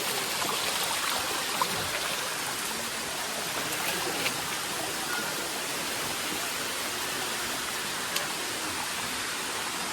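Water running steadily down a shallow limestone waterfall in a continuous rush, with three brief sharp clicks over it.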